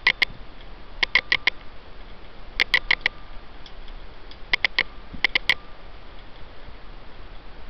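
Persian cat lapping water in short runs of three or four quick clicking laps, about five runs spread through, over the steady hiss of a thin stream from a kitchen faucet into a stainless steel sink.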